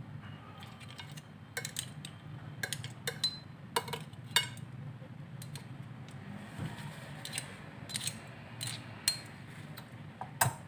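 Metal kitchen tongs clicking and clinking against a ceramic plate and clam shells while spaghetti with clams is arranged: about a dozen short, sharp clicks at irregular intervals.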